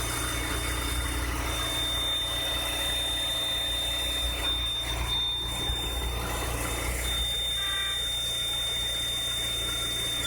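Volkswagen Caddy 1.6 petrol engine idling after a cold start, with a steady high-pitched whistle from under the hood. The whistle fades for a moment in the middle, then stops near the end as the engine warms. The owner cannot place it: the timing belt and its rollers are newly replaced, and the whistle typically appears on the first start after standing overnight.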